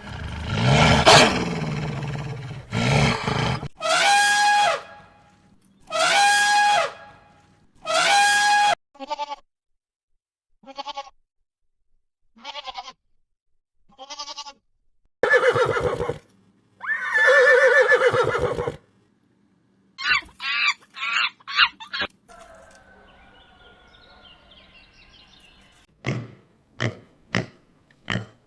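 A series of different farm animal calls one after another: three long pitched calls, then several short calls, two longer low calls, a quick run of short calls and a few brief calls near the end.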